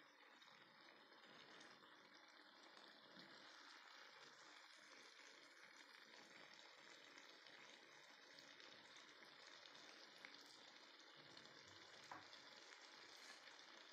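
Faint sizzling of minced chicken and potato pieces frying in a nonstick pan, with a few light clicks in the second half as a metal spatula stirs against the pan.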